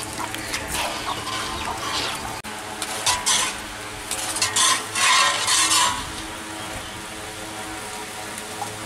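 Boondi batter frying in hot oil in a large wok, a steady sizzle that swells into loud bursts about three seconds in and again from about four and a half to six seconds, as batter drops through a perforated ladle.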